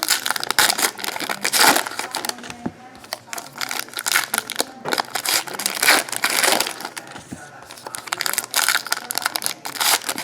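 Trading card pack wrappers being torn open and crinkled, an irregular run of rustling and crumpling bursts with short pauses between them.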